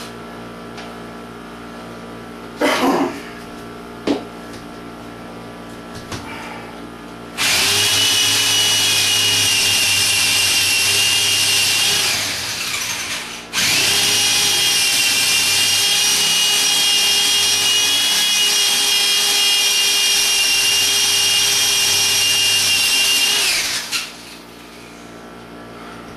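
Electric drill boring into a concrete block wall in two runs, a shorter one and then a longer one of about ten seconds, each winding down as the trigger is released. Two short knocks come a few seconds before the drilling starts.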